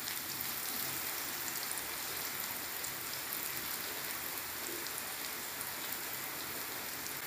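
Tempoyak (fermented durian paste) and aromatics such as lemongrass, shallots and garlic sizzling steadily in hot oil in a wok.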